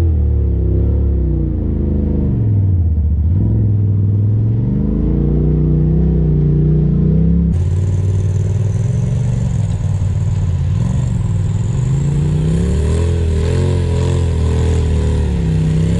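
Polaris RZR side-by-side engine running at low speed, its pitch rising and falling as the throttle comes on and off over rough trail. About halfway in the sound changes abruptly to another machine's engine with more hiss on top.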